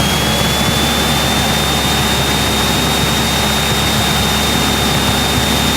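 Cessna 172 engine and propeller running steadily at reduced power on final approach, heard from inside the cockpit, with a thin steady high whine over the noise.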